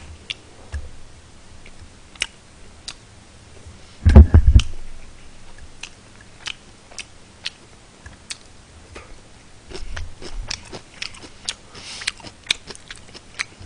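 Close-miked eating sounds of a man chewing pork cutlet and rice, with many small, scattered mouth smacks and chopstick clicks. A single loud, heavy thump about four seconds in.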